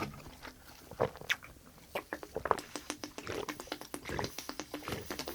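Close-miked eating sounds: wet chewing with irregular lip smacks and mouth clicks.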